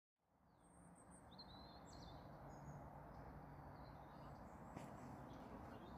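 Faint outdoor ambience fading in over the first second or two, with small birds chirping in short high calls during the first half.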